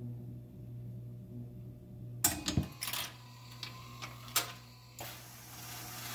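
1969 Rock-Ola 444 jukebox's record changer cycling after the record ends, returning the 7-inch disc to its upright magazine: over a steady hum, a cluster of clunks and clicks about two seconds in, another sharp click about four and a half seconds in, then a steady whirring as the mechanism runs.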